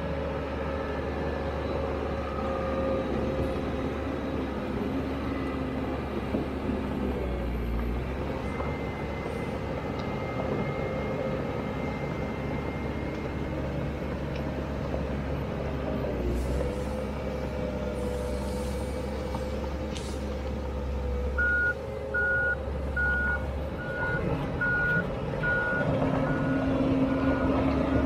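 Komatsu D31EX crawler dozer's diesel engine running steadily as it works. About three-quarters of the way in, its backup alarm starts beeping at a regular pace, a little over one beep a second, as the dozer reverses.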